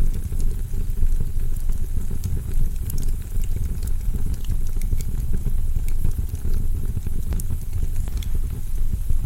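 Wood fire crackling in a fireplace: a steady low rumble with scattered sharp pops and clicks.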